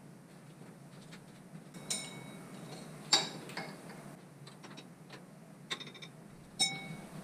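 A handful of sharp metallic clinks from hand tools, a socket on an extension and breaker bar knocking against metal, each ringing briefly, the loudest about three seconds in, over a faint steady hum.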